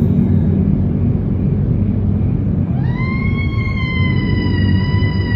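A long wailing animal call over a steady low rumble. It starts about three seconds in, rises quickly, then holds a steady pitch and begins to fall at the very end.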